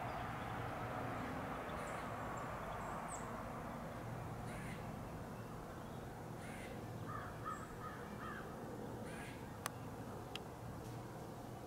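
A bird calling several times in short calls over a steady low background rumble, with a single sharp click near the end.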